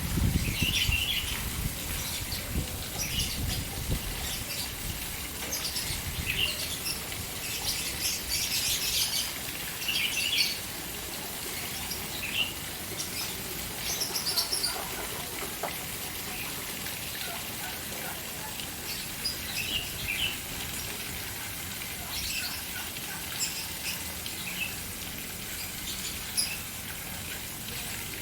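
Fountain water splashing steadily, with caged birds chirping in short, scattered calls over it. There is a low rumble in the first few seconds.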